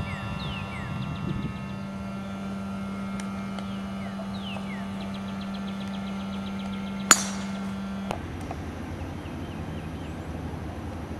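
A steady low mechanical hum, with birds calling over it in quick falling whistles and short trills. A sharp click is the loudest sound, about seven seconds in, and the hum stops about a second later.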